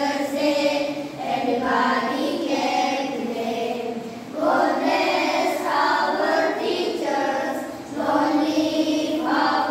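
A group of young children singing together in held phrases, with short breaks between phrases about four and eight seconds in.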